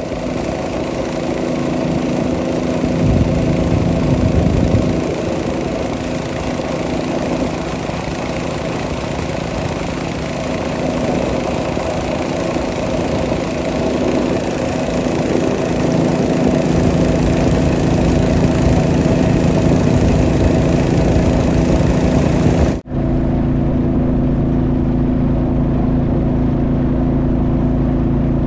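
Boat engine running steadily and loudly. About 23 seconds in it cuts out for an instant and comes back with a deeper, duller tone.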